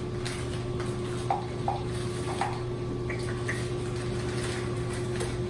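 Frozen strawberries shaken out of a bag and dropping into a blender cup, giving scattered soft knocks and bag rustle, over a steady low hum.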